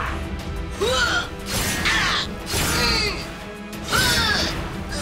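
Action background music for a toy battle, with several short screeching creature-like sound effects that bend up and down in pitch, about a second or two apart.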